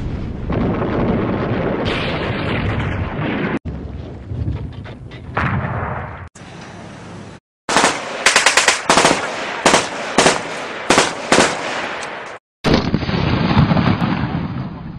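Battlefield gunfire and explosions. A dense rumbling din is followed in the middle by a rapid string of sharp shots like machine-gun fire, and the pieces start and stop abruptly as though edited together.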